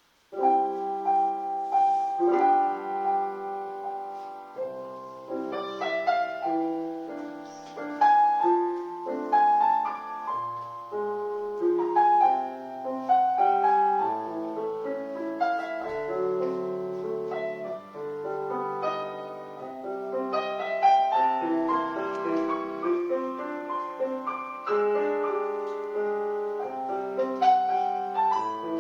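Solo piano music: a classical-style piece of chords and a melody played at a moderate pace.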